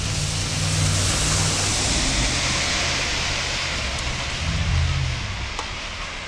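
A car passing on a wet road: tyre hiss on wet pavement swells and slowly fades, with a low engine hum underneath.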